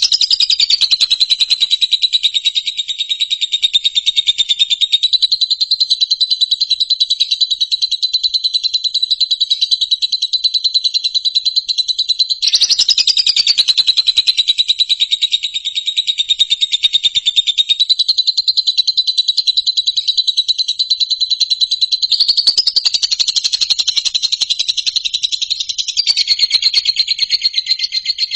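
A continuous, rapid, high-pitched animal trill on a nearly steady pitch, shifting slightly in pitch and texture a few times, about twelve, eighteen, twenty-two and twenty-six seconds in. It is a recorded call of the kind played as 'therapy' to cage songbirds.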